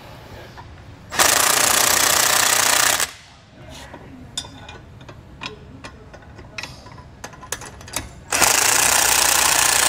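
Impact wrench hammering in two runs of about two seconds each, running down the bolts and nuts that hold the weight distribution ball mount to its shank. Between the runs come light metallic clicks and clinks of tools on the hitch.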